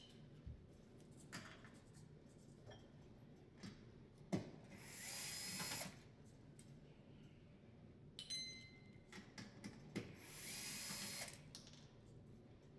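Bosch cordless screwdriver running in two short bursts, each about a second long and about five seconds apart, backing screws out of a dishwasher's front panel. Scattered clicks and knocks of the screws and panel come between the bursts.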